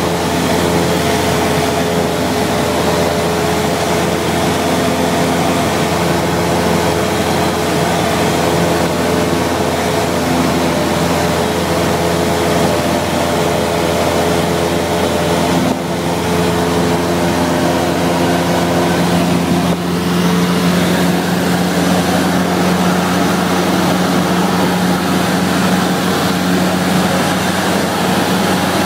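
Cessna 172SP's four-cylinder Lycoming IO-360 engine and propeller droning steadily in cruise, heard from inside the cabin.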